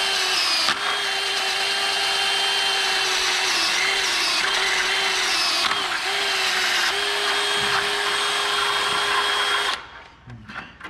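Cordless DeWalt drill running steadily as it reams out a worn bushing hole in a planter row unit, its motor pitch sagging briefly several times under load, then stopping near the end.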